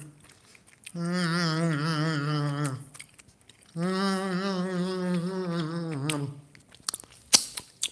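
A man humming two long, wavering notes of about two seconds each, with a short pause between them; a few light clicks follow near the end.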